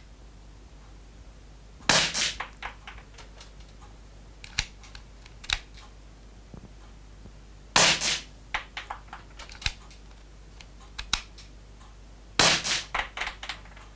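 Marushin COP .357 four-barrel airsoft derringer firing three shots, about six and five seconds apart, each a sharp pop followed by a few lighter clicks. The long gaps between shots come from its very heavy trigger pull.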